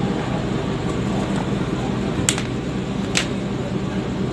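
Steady hum of a passenger train carriage, its air conditioning and machinery running, with two sharp clicks about a second apart midway.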